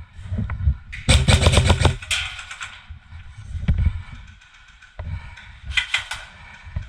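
Airsoft gun firing full-auto: a burst of about ten rapid shots lasting about a second, then a short burst of about three shots near the end, over low thumps.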